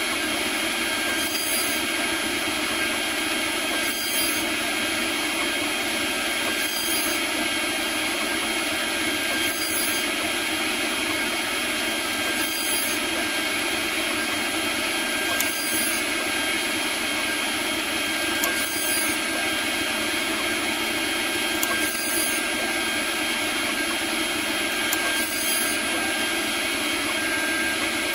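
Robotseed CNC router spindle running at high speed with a steady whine while its end mill cuts Delrin. A slight change in the cutting sound recurs about every three seconds.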